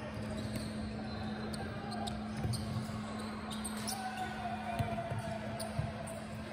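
Basketball game in a gym: a ball bouncing on the court with a few louder thumps, short high squeaks and faint distant voices over a steady low hum.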